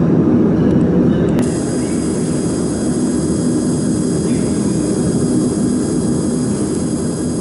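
A 20 W fiber laser marking machine running with a steady machine whirr, typical of its cooling fan. A single sharp click comes about a second and a half in, after which faint steady high tones join the whirr.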